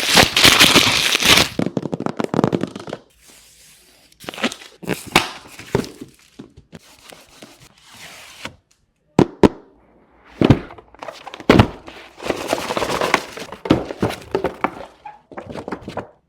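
Irregular clicks, knocks and clatter from a Keychron K2 mechanical keyboard being handled and its keys pressed, with dense runs of clicking at the start and again about twelve seconds in, and a few single sharp knocks between them.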